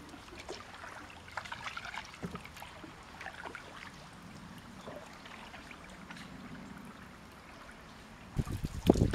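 Faint trickling and splashing of canoe paddles dipping into a slow river as an open canoe passes. Near the end, louder low knocks and rumbles begin.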